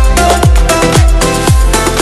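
Electronic dance background music with a steady kick drum, about two beats a second, under sustained chords.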